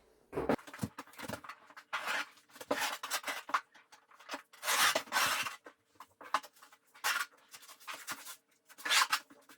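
Putty knife and fabric waterproofing membrane being worked into a shower corner: irregular scrapes and rustles of the blade pressing the fabric into wet RedGard.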